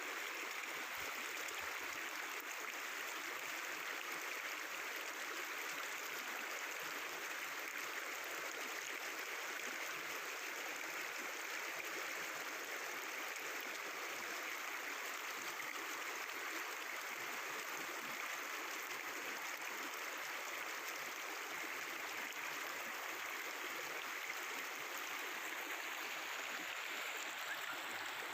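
Mountain river water flowing and babbling steadily over rocks.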